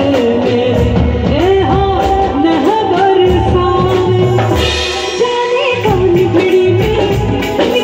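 Live band performance of a Hindi film song: a woman singing with sliding, ornamented turns over a drum kit and hand drums, with a cymbal crash about halfway through.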